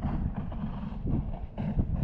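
Wind buffeting the microphone, a low, uneven rumble, with a few dull thumps scattered through it.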